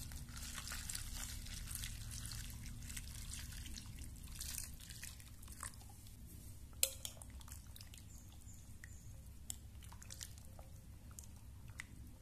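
Hot water poured into a glass bowl of raw crackers, splashing steadily for about five seconds. It then goes quieter, with a few sharp clicks, the loudest about seven seconds in.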